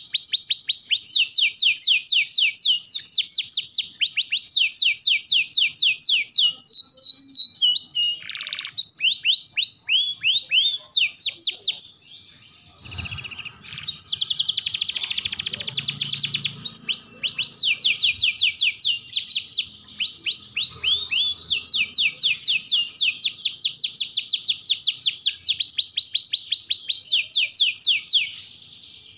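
Domestic canary singing a long, continuous song of fast trills and rolls, rapid high notes repeated many times a second, with a brief break about twelve seconds in.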